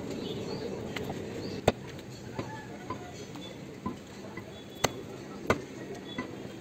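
Heavy butcher's knife chopping beef on a wooden log chopping block: about seven sharp, irregularly spaced knocks, the loudest about two seconds in and near five seconds, over steady background noise.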